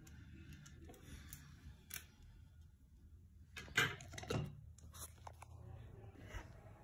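Small clicks and scrapes of metal tweezers picking hardened glue off a mink false-lash band, with two louder scraping sounds about four seconds in.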